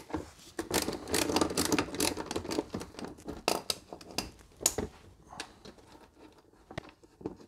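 Socket ratchet clicking in quick runs as a 10 mm bolt holding an underbody cover is undone. The clicks thin out to a few scattered ones about two thirds of the way through.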